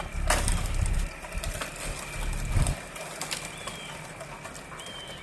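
A sharp crack, then low rumbling for about two and a half seconds with a few lighter clicks, followed by several short bird chirps. A steady high-pitched tone runs underneath throughout.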